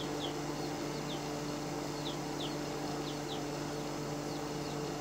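Steady hum of the air blower feeding a charcoal forge fire, with about eight short falling chirps of small birds or chicks scattered across it.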